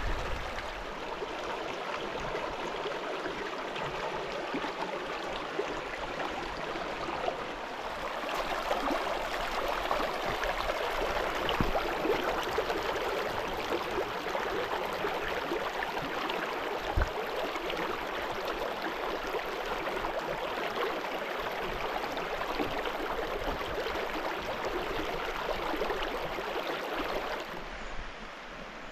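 Shallow mountain creek flowing over stones: a steady rush and babble of water. There is one soft knock partway through, and the water sound drops off near the end.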